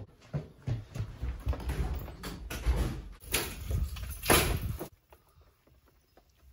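Hurried footsteps and a door: a run of low thumps and knocks with two louder bangs about a second apart, stopping about five seconds in.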